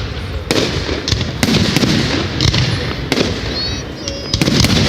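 Fireworks going off: a series of sharp bangs about a second apart, each with a crackling tail, and a few short whistles near the end.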